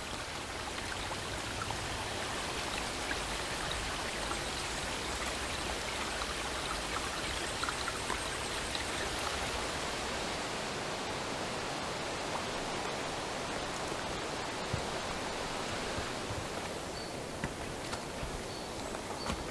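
Steady, even rushing noise, thinning a little about sixteen seconds in, with a few faint clicks.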